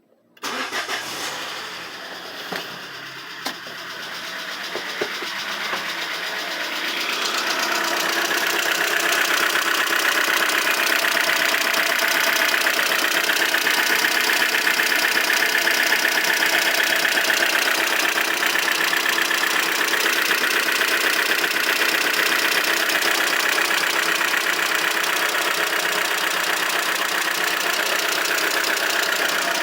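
Citroën Aircross engine starting and running, with a knocking noise. The owner links it to the oil warning light being on. It grows louder over the first several seconds, then runs steadily.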